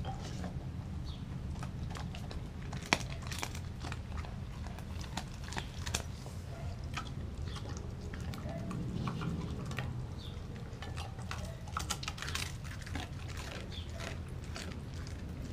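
German Shepherd mix eating raw dog food from a glass bowl: irregular chewing and crunching with scattered clicks, one sharp click about three seconds in, over a steady low rumble.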